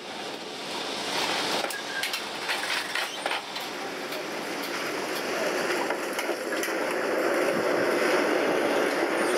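Lisbon electric tram running along its street track, its wheels rumbling and clattering on the rails with a run of sharp clicks in the first few seconds. The rumble grows louder as it goes.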